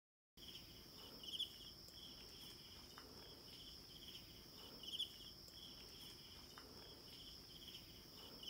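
Faint insects calling: a steady high buzz with a pulsing chirp repeated about twice a second.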